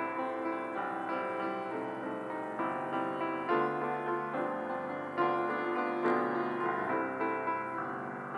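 Piano playing slow, sustained chords, each new chord struck and left to ring and fade.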